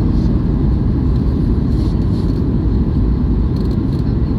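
Airliner cabin noise heard from inside the cabin during descent: the engines and rushing air make a steady, deep rumble.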